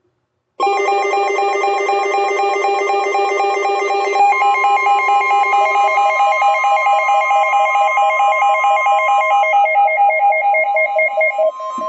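Electronic emergency alert attention tone: several high tones trilling rapidly together like a phone ring. The pattern shifts about four seconds in, and near the end it turns into a slower pulsing beep.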